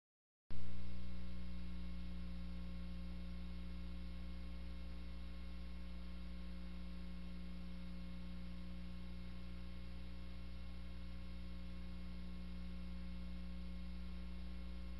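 Steady low electrical hum, mains-hum-like, with several steady tones above it, on the soundtrack of old film footage. It starts abruptly about half a second in, loudest at the onset, and settles to an even level within a second or two; no blast sound is heard.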